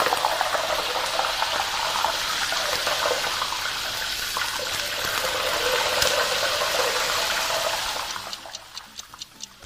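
Hot oil ladled again and again over a whole chicken held in a wire strainer above a wok, sizzling and crackling as it pours over the skin (pour-frying). About eight seconds in the sizzle fades, and a regular ticking follows, about three or four ticks a second.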